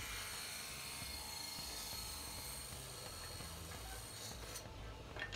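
Table saw running while a wooden board is fed past the blade, cutting the fingers of a feather board: a steady whine and hiss that ends about four and a half seconds in, followed by a brief knock.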